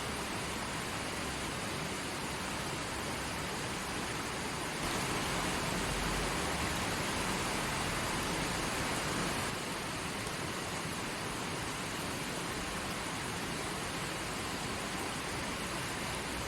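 Creek water flowing steadily, an even rush of running water. It grows slightly louder and brighter from about five seconds in until about nine and a half seconds.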